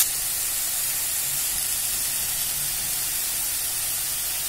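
Potatoes and fenugreek leaves sizzling in hot oil in a kadhai, a steady even hiss.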